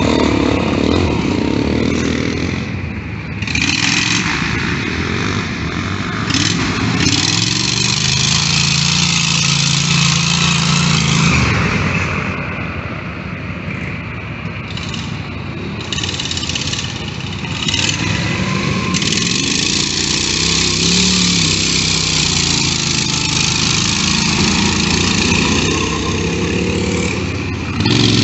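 Small engines of mud-bogging riding mowers running and revving as they churn through deep mud, the engine pitch climbing and holding twice with quieter dips in between.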